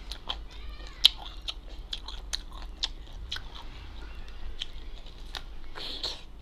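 Close-up chewing and biting of raw cucumber: irregular crisp, wet crunches, the sharpest about a second in, with a short hissing bite or breath near the end.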